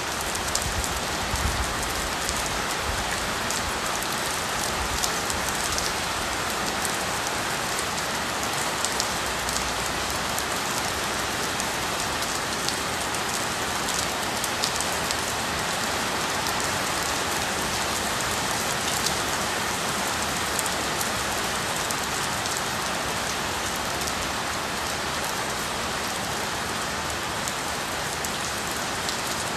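Heavy rain pouring steadily onto a flooded tiled floor, with many drops splashing into the standing water.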